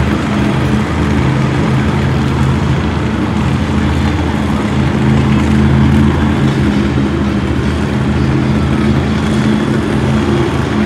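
Monster truck engines, supercharged V8s, running steadily as the trucks drive slowly around the dirt arena, a deep even engine note with no big revs.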